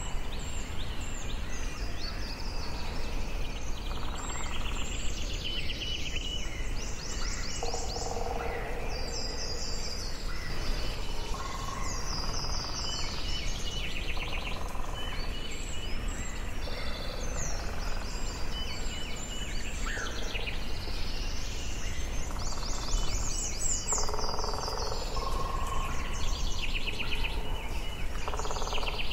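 Forest ambience: several birds singing and calling at once, with overlapping trills and chirps, over a steady low background rush.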